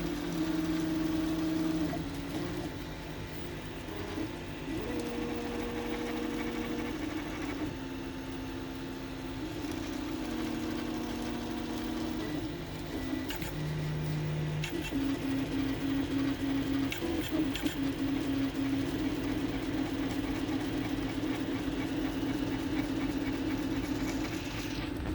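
NEMA 17 stepper motors on a 3D printer driven by TMC2209 drivers in StealthChop, humming in steady pitched tones that jump to a new pitch every second or two as the moves change, then hold one tone through the second half. It is the resonance noise the owner finds strange, which the owner says goes quiet below about 36 mm/s or above about 90 mm/s.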